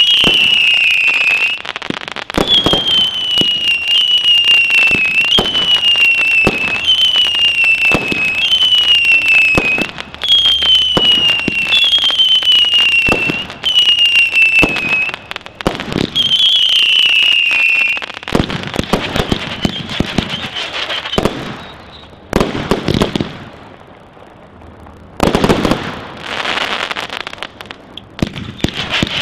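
A consumer firework barrage fires a run of whistling shots. Each is a high whistle lasting about a second that dips slightly in pitch, coming about every second and a half among sharp bangs. The whistles stop about 18 seconds in, leaving crackle and pops, then a lull, then a short volley of bangs.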